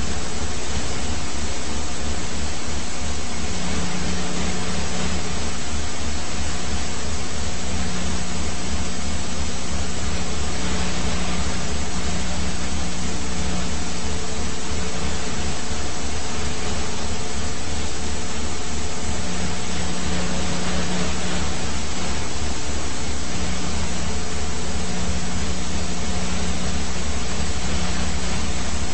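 Helicopter noise heard from on board: a steady engine and rotor drone with a fast low throb and a constant hiss.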